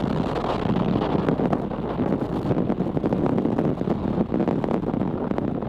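Falcon 9 first stage's nine Merlin 1D engines firing in ascent, heard through the rocket's onboard camera microphone: a steady, dense rumble and rush of engine noise and airflow, shot through with fast crackle.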